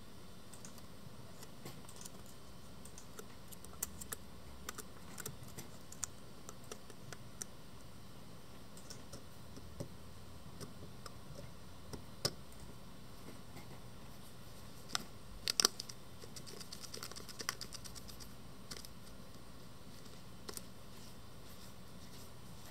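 Scattered small clicks and taps of fingertips and a gelatin filter sheet being pressed into the rear filter holder at the bayonet mount of an Irix 15mm lens, with a cluster of louder clicks about two-thirds through followed by a brief rustle.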